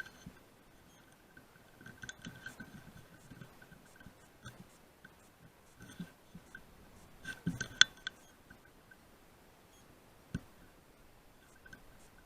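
Faint scattered clicks and light rustles, a small cluster of them about two-thirds of the way through and one sharper click a little later, with a faint high steady tone coming and going.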